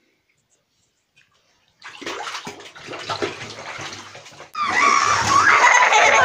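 Water splashing and sloshing in a bathtub as a cat is washed by hand, starting about two seconds in. From about halfway the splashing grows louder and a high wavering voice sounds over it.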